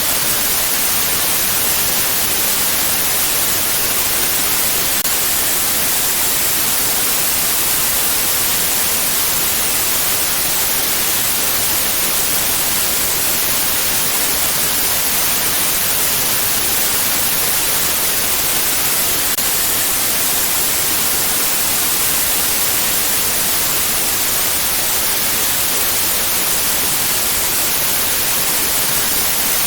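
Steady white noise: an even, unbroken hiss at a constant level, brightest in the high frequencies.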